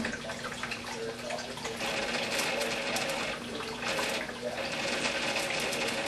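Water running and trickling in the water half of a vivarium, a steady hiss with a faint low hum under it.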